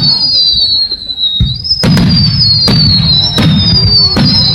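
Aerial fireworks shells bursting in a series of sharp bangs, about five in a few seconds, over high whistling tones that keep sliding downward in pitch.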